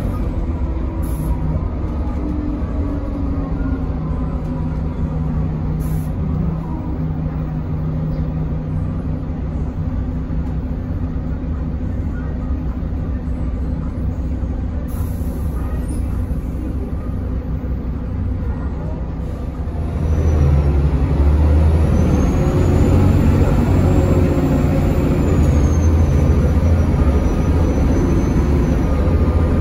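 Mercedes-Benz O405NH city bus heard from inside the cabin: the engine runs steadily at low revs, then about two-thirds of the way through it grows louder as the bus pulls away. A faint high whine rises and falls as it gathers speed.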